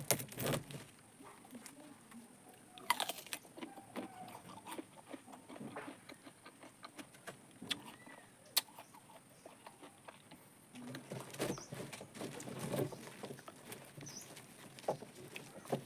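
Brittle tamarind pod shells cracking and crumbling as they are broken open by hand, mixed with chewing of the sticky pulp. Faint scattered crackles and clicks, busiest a little before the end.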